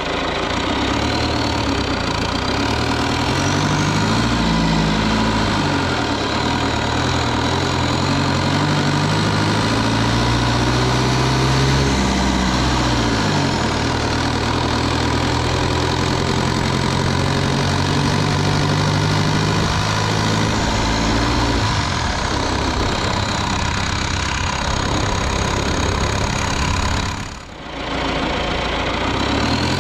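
Cummins 4BT 3.9-litre four-cylinder turbodiesel running under load while driving, heard from the open engine bay. Its pitch climbs and falls several times as the revs change, with a faint high whistle rising and falling, and there is a brief drop in level near the end.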